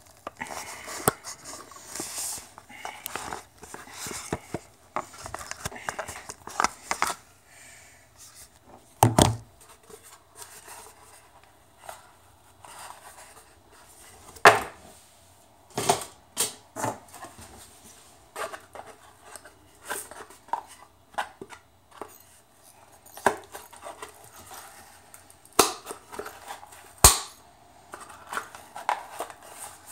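Handling noise of a cardboard box being turned over and fiddled with close to the microphone: rustling and scraping, broken by irregular sharp taps and a few louder knocks.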